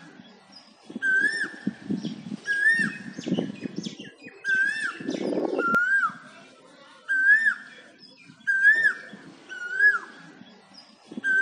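Asian koel (kuyil) calling over and over, a rising note that hooks down at the end, repeated about every second and a half. Softer, lower muffled sounds come and go beneath the calls.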